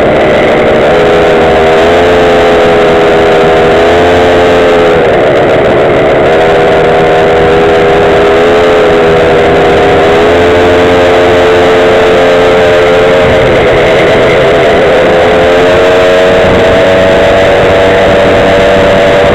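Small Go-Ped scooter engine running under way, its pitch rising and falling with the throttle. It dips briefly about five seconds in and again around ten seconds, then climbs higher near the end, over a steady rush of noise.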